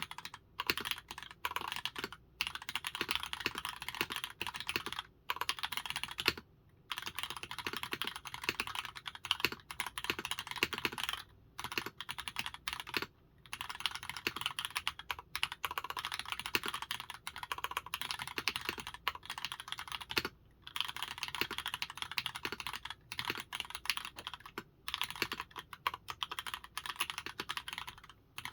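Fast typing on an OTD 356 Mini 60% custom keyboard with Cherry MX Black linear switches, a full aluminium plate and GMK Dolch keycaps. The keystrokes come in dense runs broken by short pauses.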